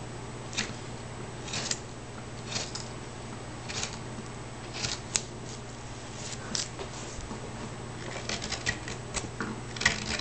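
Short-handled hand carving tool cutting and scraping chips from a flat wooden board in short strokes about once a second, quicker and closer together near the end. A steady low hum runs underneath.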